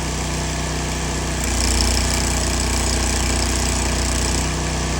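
Stick welding on a differential: arc crackle and hiss from about a second and a half in until near the end, over a steady engine hum running throughout.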